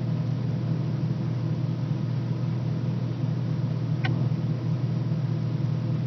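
A steady low mechanical hum over a hiss, unchanging throughout, with one faint click about four seconds in.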